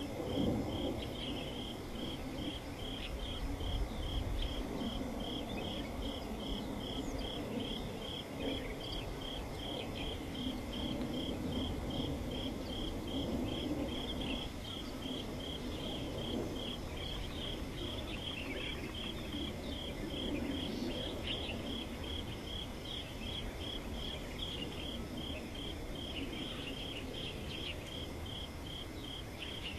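An insect chirping steadily in an even pulse, about two to three high chirps a second, over a low, steady background rumble.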